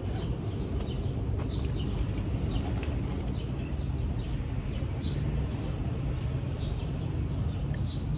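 Small birds chirping again and again in short high notes over a steady low rumble, with a few faint clicks.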